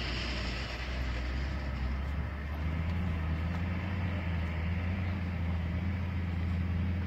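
A motor vehicle's engine running with a steady low hum. Its pitch steps up slightly about two and a half seconds in, and it stops near the end.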